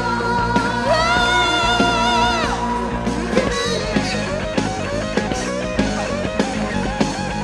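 Rock song with band and vocals. About a second in a singer holds a long note with vibrato for a second and a half, over electric guitar and steady drum hits.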